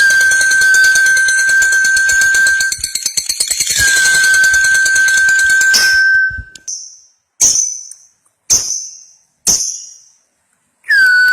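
Lovebird's long rapid chattering song (ngekek panjang), in two long high-pitched runs, then four short sharp chirps about a second apart.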